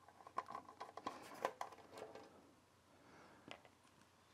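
Faint clicks and scrapes of a screwdriver working screws out of a sheet-metal electronics control box. The clicks are mostly in the first two seconds, with one more near the end.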